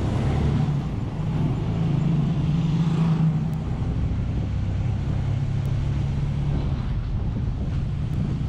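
Vehicle engine running steadily while travelling along a road, with road noise. Its note rises a little about two seconds in and eases back just after three seconds.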